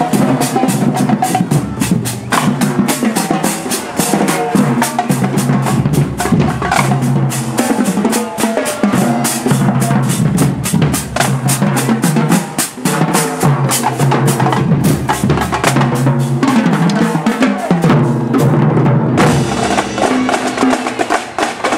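Drum-heavy music with snare and bass drum keeping a fast, steady beat over pitched notes. The drumming drops out about nineteen seconds in, leaving held notes.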